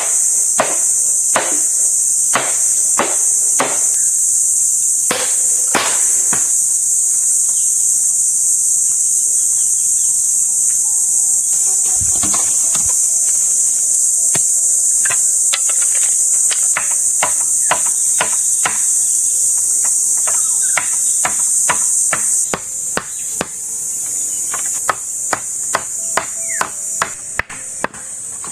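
Repeated, irregular hammer strikes, as in knocking together repairs on a chicken coop or fence, over a loud, steady, high-pitched chorus of insects. The insect chorus drops off somewhat near the end.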